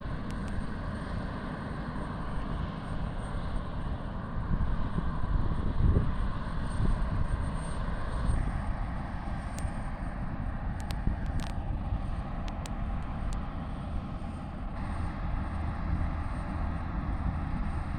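Aircraft engine noise heard outdoors: a steady rumble that shifts in character abruptly about eight seconds in and again near fifteen seconds.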